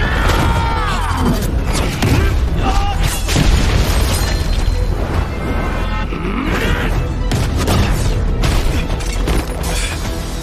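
Battle soundtrack of an animated fight: dramatic music under a heavy low rumble, with repeated booming impacts and blasts, and strained cries at the start and again about six seconds in.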